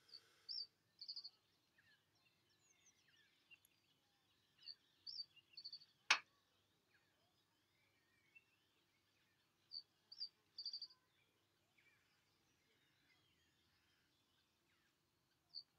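Quiet outdoor birdsong: a small songbird repeats a short, high phrase of a few notes ending in a buzzy trill, roughly every five seconds, over faint scattered chirps of other birds. A single sharp click about six seconds in.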